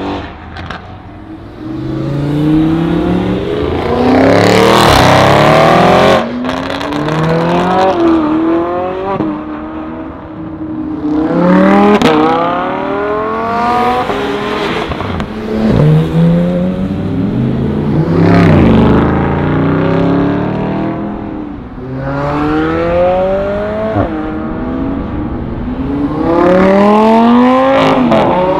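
A series of supercars accelerating hard one after another, each engine rising in pitch and dropping back at upshifts as it climbs through the gears, with about four loud pass-bys.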